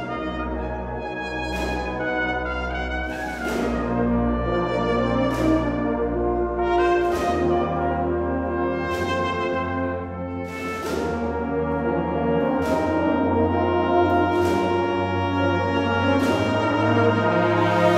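Agrupación musical (Andalusian Holy Week brass band) playing: sustained trumpet and trombone chords over low brass, with a percussion strike about every two seconds that rings on in a reverberant church.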